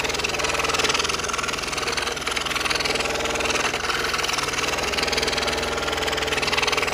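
Scroll saw running steadily, its fine blade stroking rapidly up and down as it cuts curving lines through a thin wooden jigsaw puzzle panel.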